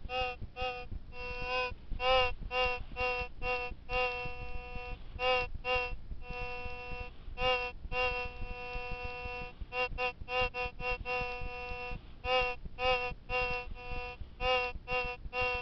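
Metal detector's target tone: a reedy, mid-pitched beep repeating about three times a second as the coil sweeps back and forth over a buried target, with a few longer held tones in the middle.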